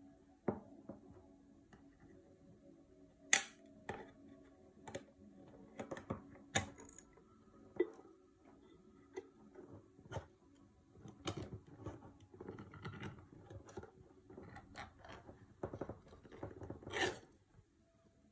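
Ring-pull lid of a metal food tin being opened by hand: sharp metal clicks and taps as the tab is worked, the loudest about three seconds in, then rough scraping and a loud rip near the end as the lid tears open and peels back.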